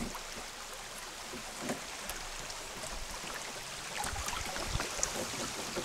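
Shallow river water rippling and flowing along a moving canoe, with a few light knocks and splashes scattered through.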